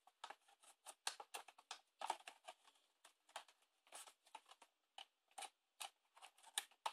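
Faint, irregular crackling and clicking of a knife blade cutting and prying along the edges of a cardboard toy box.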